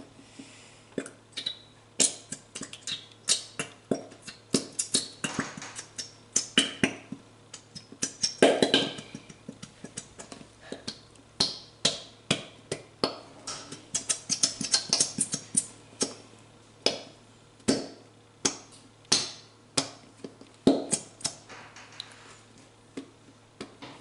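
A plastic glue bottle being squeezed and knocked to get the last glue out, giving irregular knocks, clicks and squelches, about two or three a second.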